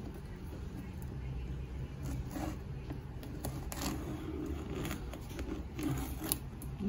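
Scissor blade slitting the clear packing tape along the seam of a cardboard box, with several short scraping, ripping sounds.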